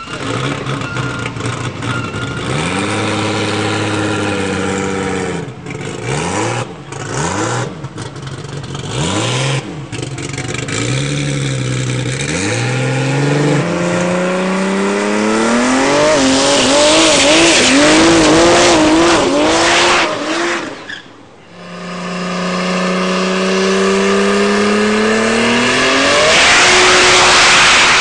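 Turbocharged car engine revving repeatedly, its pitch climbing and dropping sharply when the throttle closes. A loud hiss from the external wastegate dumping open to the air rides over the engine at the top of the two long climbs.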